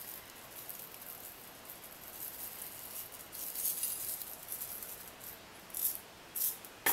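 Sugar sprinkles rattling in a shaker jar as they are shaken out over an iced cake, in uneven bursts: a longer stretch of shaking about halfway through, then a few short, sharp shakes near the end.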